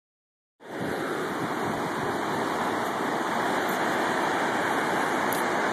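Steady rushing of whitewater rapids in a river gorge, starting about half a second in.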